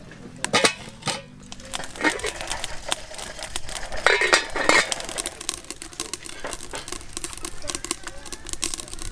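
Aluminium cooking pot clanking as it is set on a clay charcoal stove, then its metal lid clattering on with a ringing clang about four seconds in. Light taps and clicks follow.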